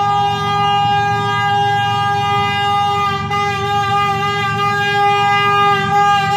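Pakistan Railways GE U40 diesel locomotive's air horn (whistle) sounding one long unbroken blast, held at a steady pitch, over a low rumble.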